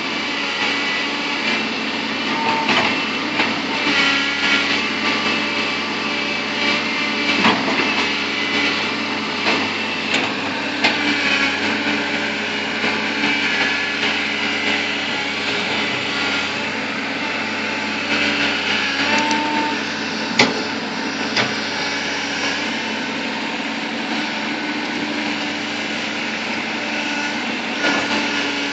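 Bulldozer's diesel engine running steadily under work, with a few sharp knocks and clanks over it, the loudest about twenty seconds in.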